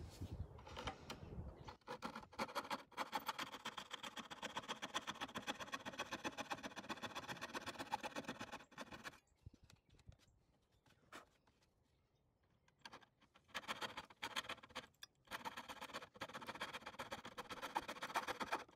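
Coping saw cutting a cope into the end of a baseboard molding in quick, even strokes. A long run of sawing, a pause of a few seconds past the middle with a couple of small knocks, then sawing again near the end.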